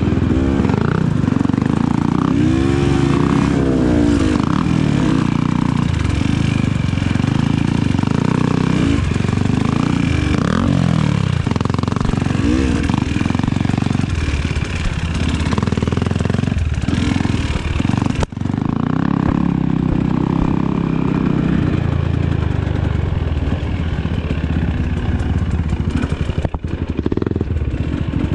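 Dirt bike engines running and revving, the pitch climbing and falling repeatedly as the throttle is worked, with a brief dip in sound about two-thirds of the way through.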